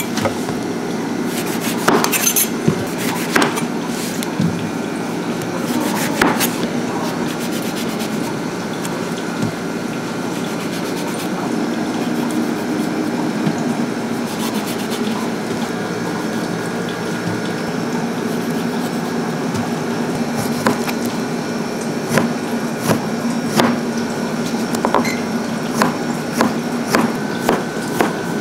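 Kitchen work sounds: scattered clicks and taps over a steady low hum, the taps coming more often near the end.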